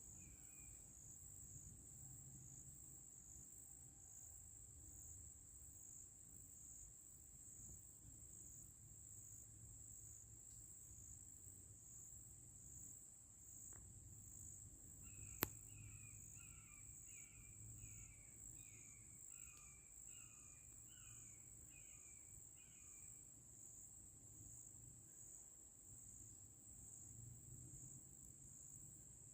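Faint insect chorus, a steady high shrill, in quiet woods. About halfway a single sharp click, followed by a bird calling a quick series of about a dozen short notes for several seconds.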